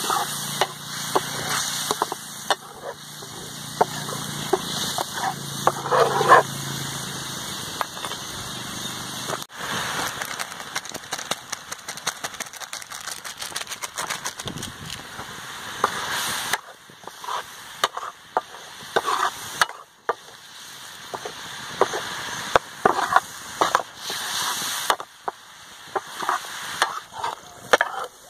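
Chicken curry simmering and sizzling in a steel frying pan over a wood fire, with a metal ladle stirring and scraping the pan and many sharp clicks and crackles. A brief pitched cry comes about six seconds in.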